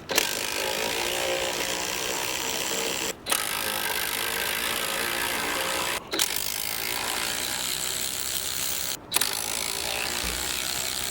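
Handheld power tool running bolts out of an engine's intake manifold, in four runs of about three seconds each with short breaks between them.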